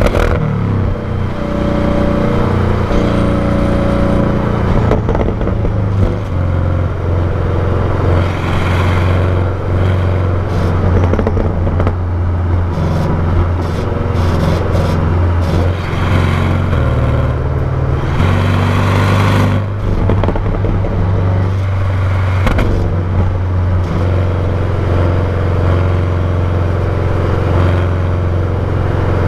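Stock exhaust of a 2019 Porsche 718 Cayman GTS, a turbocharged flat-four, running with a steady low drone whose pitch steps up and down a few times. Bursts of rushing noise come in now and then, around a third of the way in and again about two thirds through.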